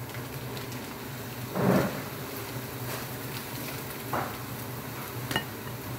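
Minced chicken frying in a pan over a steady low hum, with a few short knocks and scrapes of a cooking utensil against the pan, the loudest about two seconds in and a sharp click near the end.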